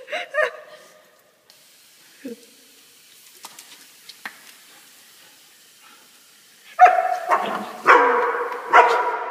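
A collie barking three times about a second apart near the end, each bark ringing on in the echo of a concrete parking garage, after a single short yip about two seconds in.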